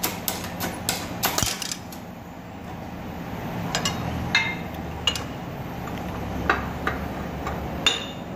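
Metal clicks and clinks from a shop press as a Corsa front wheel hub is pressed out of its steering knuckle and the freed parts are handled. There is a quick run of sharp clicks in the first two seconds, then scattered clinks, a few of them ringing, over a low hum.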